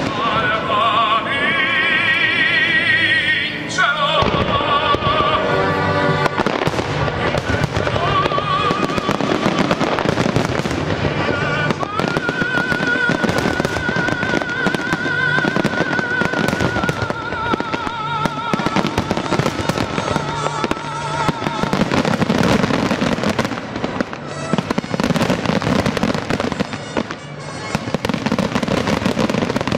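Aerial fireworks bursting in dense, rapid succession over recorded music, in which a singer's voice holds long wavering notes.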